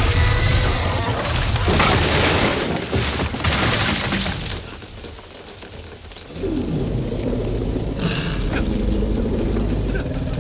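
Film sound of a wooden hut's walls being smashed and splintering in heavy rain as a Tyrannosaurus rex breaks through, with crashing for about the first four and a half seconds. After a quieter moment, low drawn-out sounds begin about six seconds in.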